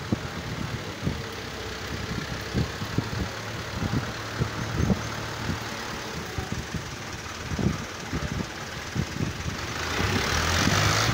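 Diesel farm tractor engine running as the tractor manoeuvres, a low, uneven chugging. A broad rushing noise swells near the end.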